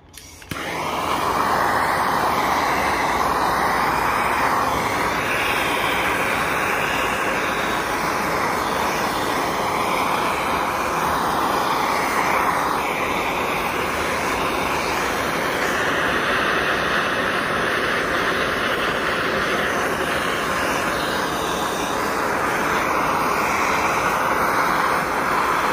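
Handheld gas torch running with a steady, rushing hiss of flame. It comes on just after the start and stays even throughout while scorching the carved Arbutus wood surface.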